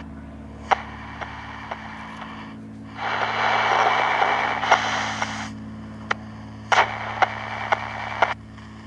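Vintage AM pocket transistor radio tuned between stations: a steady hum with scattered crackling clicks. A burst of static hiss comes in about three seconds in and lasts a couple of seconds, and a weaker one follows later.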